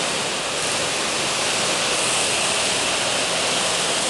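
Go-kart engines running around an indoor track, blending into a steady wash of noise that echoes through the hall.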